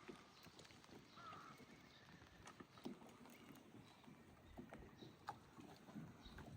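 Faint footsteps on a wet path during a rainy walk, with scattered soft knocks and ticks.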